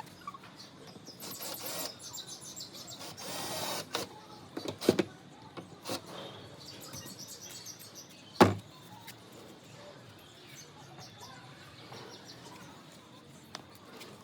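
Birds chirping, with a few sharp knocks, the loudest about eight seconds in.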